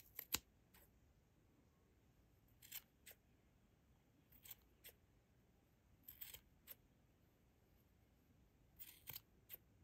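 Small scissors snipping the yarn ends of a pom-pom as it is trimmed to shape. About a dozen short, crisp snips come at irregular intervals, often in quick pairs, with quiet gaps between them.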